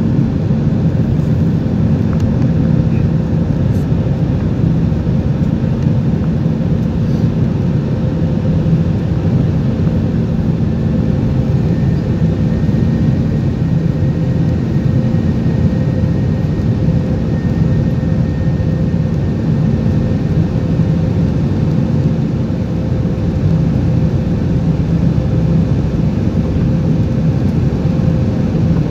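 Steady cabin drone of an Airbus A320-214 climbing after takeoff, heard from inside the cabin at a seat over the wing: the CFM56 turbofans' deep rumble mixed with airflow noise, with a faint steady hum running through it.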